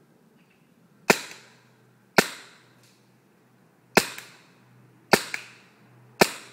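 BT SA-17 paintball pistol firing five single shots, one to two seconds apart, each a sharp pop that dies away over a fraction of a second.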